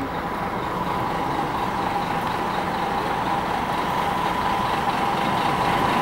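Bus engine running: a steady rumble with a constant high whine, growing slightly louder.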